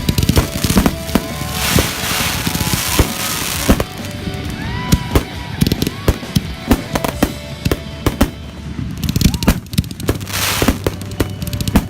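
Fireworks and firecrackers going off: a rapid, uneven run of sharp bangs and pops, with stretches of hissing about two seconds in and again near ten seconds.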